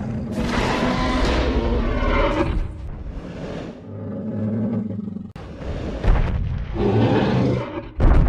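Dinosaur roar sound effects for a Tyrannosaurus rex. A long roar fills the first couple of seconds, several shorter roars follow, and there is a sudden loud hit near the end.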